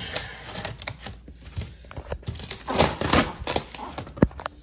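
Corrugated cardboard box being ripped open by hand: irregular tearing and crackling of cardboard and packing tape, loudest a little under three seconds in, with a sharp knock near the end.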